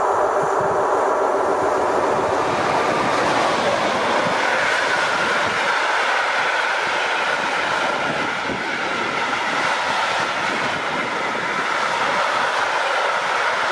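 Container freight train passing close by: the noise builds over the first couple of seconds as the train arrives, then holds as a steady rumble and clatter of the wagons' wheels on the rails, with a faint high tone running under it.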